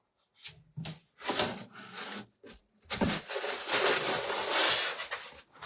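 Cardboard box and packing material rustling and scraping as items are pulled out of a box, with a few light knocks, then a longer spell of continuous rustling from about three seconds in.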